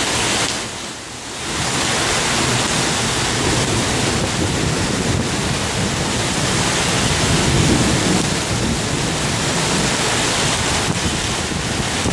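Torrential rain pouring down in strong gusting wind: a loud, steady rush, with wind buffeting the microphone. The noise dips briefly about a second in and swells again around eight seconds.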